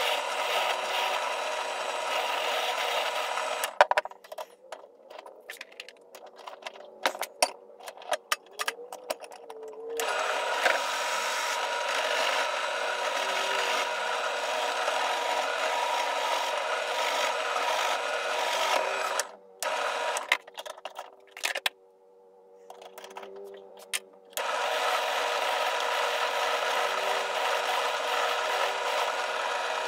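Benchtop drill press spinning a wire brush wheel while a rusty steel ball peen hammer head is scrubbed against it to strip the rust: a steady whirring, scratching run. It stops abruptly about four seconds in and again about nineteen seconds in, giving way to quiet handling clicks and knocks before the scrubbing starts again.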